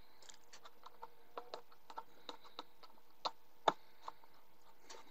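Faint, irregular small clicks and taps of a screwdriver tip and small machine screw against a laser-cut wooden iris box as the screw is worked toward the nut's thread, with two louder clicks a little past three seconds in.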